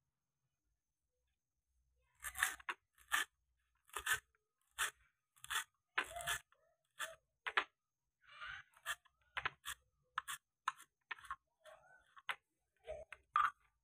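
Kitchen knife chopping fresh coriander on a wooden chopping board: a run of short, sharp cuts, about two a second, starting about two seconds in.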